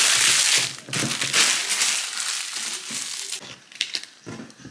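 Packaging being crumpled and crinkled by hand. It is loudest for the first second, then goes on as lighter crackling handling that thins out near the end.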